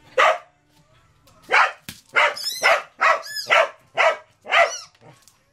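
Cardigan Welsh Corgi barking excitedly, about eight sharp barks in quick succession.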